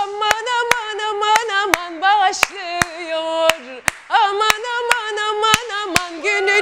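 A woman singing a melody over steady handclaps, about three claps a second.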